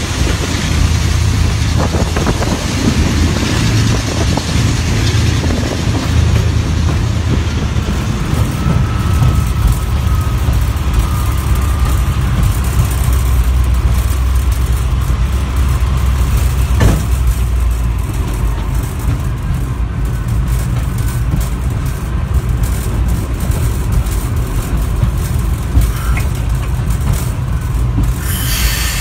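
Class 35 Hymek diesel-hydraulic locomotive's Maybach V16 diesel engine running under load as the locomotive banks a train from the rear, heard from inside its cab: a steady, deep rumble under a constant hiss of running noise, with a single sharp knock about seventeen seconds in.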